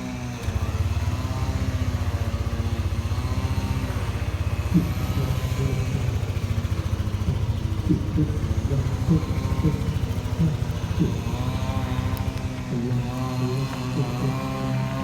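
Yamaha Aerox scooter's single-cylinder engine starting about half a second in and idling with a rapid, even low putter, which fades down near the end.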